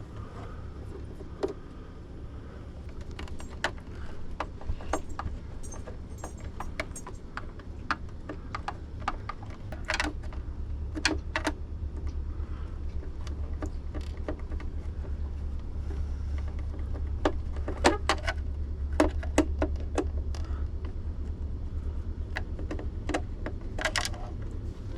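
Scattered small metallic clicks and clinks of a screwdriver backing out the console's small machine screws and the screws being handled, over a low steady hum.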